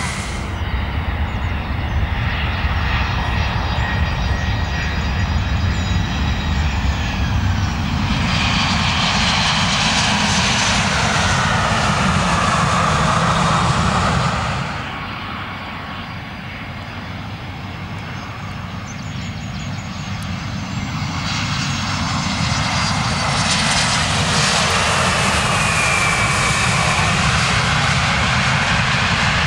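Two Airbus airliners landing close by, one after the other: jet engine whine falling in pitch as each comes in, then the engine noise swells loudly as the aircraft touches down and rolls along the runway. A sudden cut about halfway separates the two.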